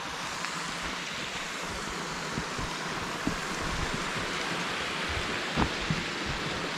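Steady rushing of a creek flowing over rocks, with a few soft low thumps, the clearest about five and a half seconds in.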